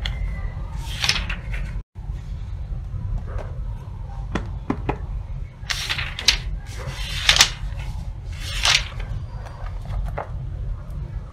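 Paper pages of a paperback book being turned by hand: several brushing swishes, the loudest between about six and nine seconds in, with light taps and rustles between them, over a steady low hum.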